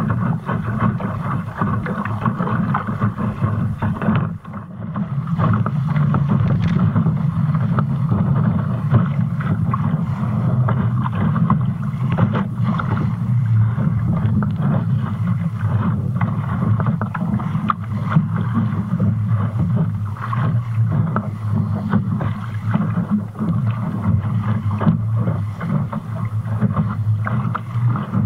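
Wind buffeting the microphone over the rush of water along the hull of a Fulcrum Rocket sailing dinghy moving through choppy water. Steady, with a brief lull about four seconds in.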